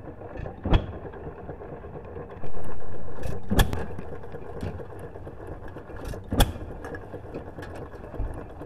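2.5 horsepower Economy hit-and-miss engine firing one sharp exhaust pop about every three seconds, three times, coasting on its flywheels between firings, with other engines running steadily in the background. A brief louder rush of noise comes about two and a half seconds in.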